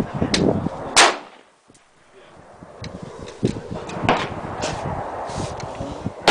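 Stag 15 AR-15 rifle firing: one loud shot about a second in, a fainter shot about four seconds in, and another loud shot right at the end.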